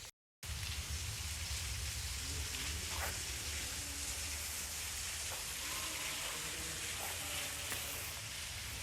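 Steady rushing hiss of running water with a low rumble beneath, starting just after a brief silence; faint voices come through in places.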